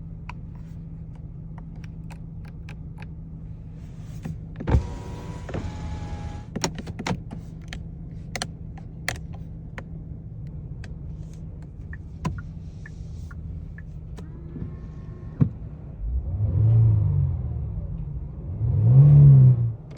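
2022 Genesis G70 engine idling with a steady low hum, with scattered clicks and a brief whirring burst about five seconds in. Near the end it is revved twice, its pitch rising and falling each time, and the second rev is louder.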